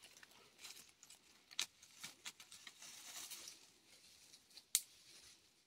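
Faint rustling and scattered light clicks of dry leaves and twigs being handled on the forest floor while a ground snare is set by hand.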